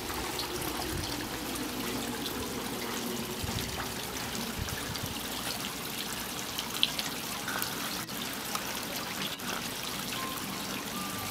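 Water trickling steadily from a small tiered garden fountain, spilling from bowl to bowl into a pond.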